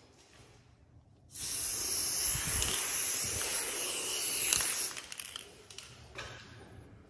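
Aerosol spray paint can spraying a line of paint onto a wall: one steady hiss that starts abruptly about a second in and stops after about three and a half seconds.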